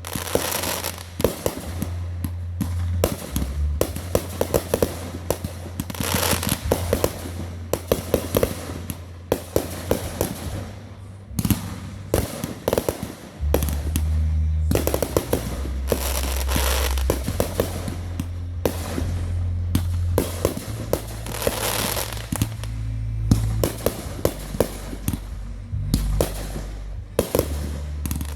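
Fireworks going off: a dense, continuous run of sharp pops, cracks and crackling bursts, with music carrying steady low notes underneath.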